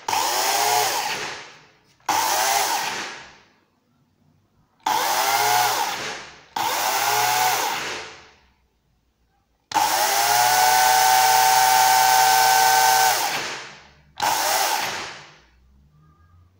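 Makita UC4041A electric chainsaw running unloaded in six short trigger pulls. Each time the motor and chain come up to speed at once, then wind down with a falling pitch when the trigger is released. The longest run, held steady for about three and a half seconds, starts near the middle.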